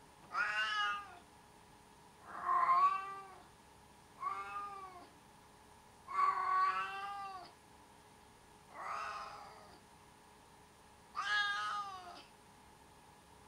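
Siamese kitten meowing repeatedly: six drawn-out, whining calls about two seconds apart, each rising and falling in pitch.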